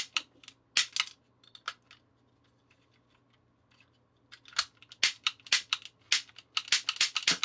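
Clicking of a plastic toy cap gun's trigger and hammer mechanism: a few clicks, a pause of about two seconds, then a fast run of clicks near the end. The trigger works but the 8-shot ring cap is not advancing.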